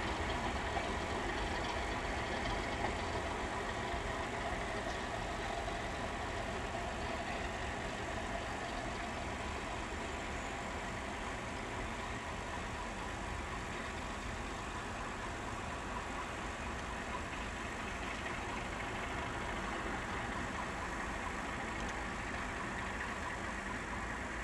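Diesel engines of Network Rail Class 31 locomotives (English Electric 12SVT) on a departing test train, a steady drone that slowly fades as the train draws away.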